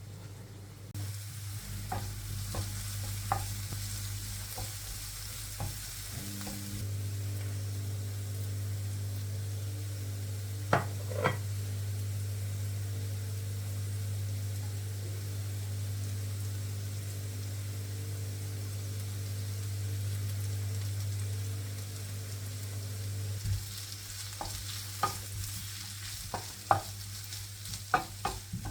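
Food frying and sizzling in a pan while it is stirred, with the utensil clicking against the pan now and then: twice sharply about eleven seconds in and more often near the end. A steady low hum runs underneath and stops shortly before the end.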